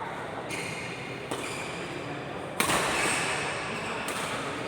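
Rally sounds of a doubles racket-sport game: sharp hits and thuds, the loudest about two and a half seconds in.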